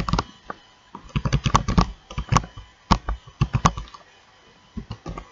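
Typing on a computer keyboard: irregular keystrokes, busiest in the middle, then a pause of about a second and a few more keystrokes near the end.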